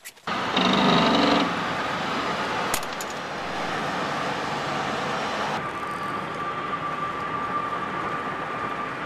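Steady road noise of a vehicle travelling at speed, with a semi truck alongside. A louder pitched sound is heard in about the first second, and a thin steady tone joins a little past halfway.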